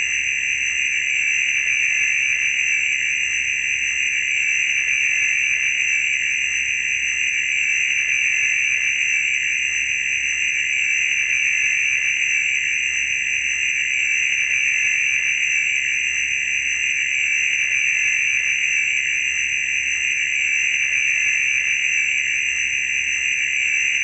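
Cinesound library laser sound effect: a steady, unbroken, high-pitched electronic whine with faint thin tones above it.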